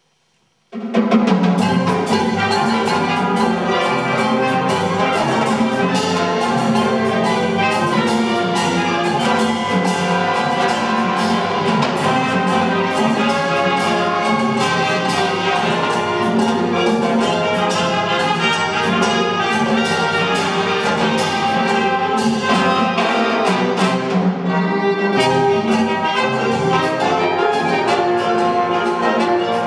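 A band of saxophones, trumpets, trombones and tuba with conga drums plays a salsa tune. It starts suddenly about a second in, and sharp percussion strokes keep a steady beat.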